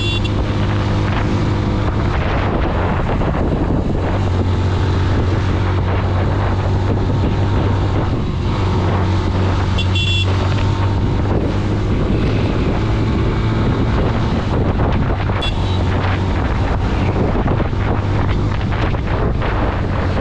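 Motorcycle engine running steadily while riding, under heavy wind noise buffeting the microphone.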